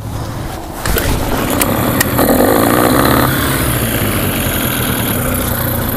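Small boat's outboard motor running steadily under way, getting louder about a second in as the throttle is opened on the tiller grip.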